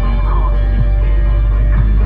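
Background music: held chords over a heavy deep bass, with occasional short low strokes.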